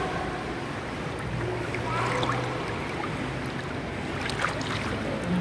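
Indoor swimming pool ambience: a steady wash of water noise around the floating swimmer, with a few small splashes about four seconds in.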